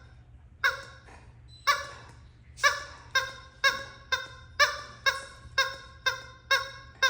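Rubber squeaky toy squeaked over and over, each squeak short and at the same pitch. The squeaks come about a second apart at first, then quicken to about two a second.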